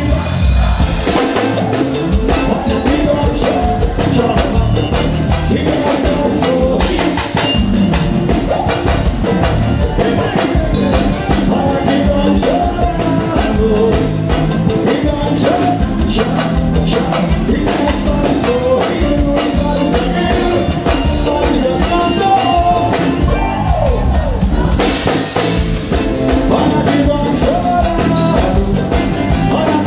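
Live forró band playing loud over the stage PA: a drum kit keeping a steady beat under keyboards and accordion, with a singer's voice on top.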